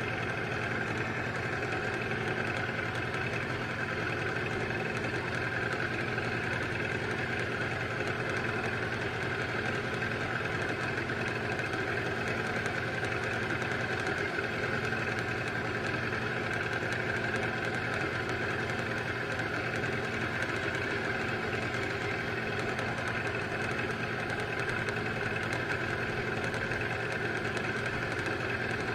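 Boat engine running steadily at low trolling speed, an even drone with no change in pitch.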